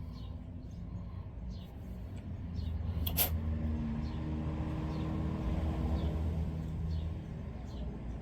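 A motor vehicle's engine running, a low steady hum that swells from about two seconds in and fades near the end, with one sharp click about three seconds in and faint high chirps.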